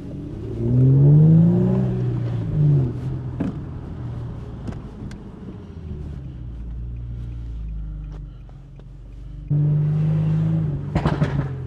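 Infiniti G37's V6 with aftermarket headers and exhaust, accelerating about a second in with a loud, rising exhaust note, then settling to steady running. The engine note jumps up again near the end.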